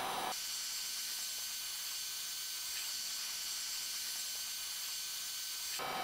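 Heat gun blowing hot air, a steady hiss, as it shrinks heat-shrink tubing onto a battery cable lug.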